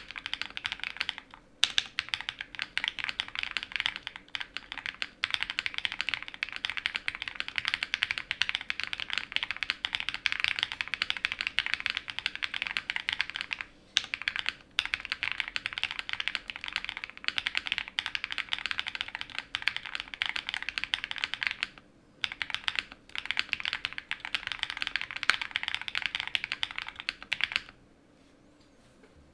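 Fast, continuous typing on a QK100 gasket-mount mechanical keyboard with a polycarbonate plate, lubed and filmed Owlab London Fog switches and PBTFans PBT keycaps. The keystrokes come in a dense stream with a few brief pauses and stop about a second and a half before the end.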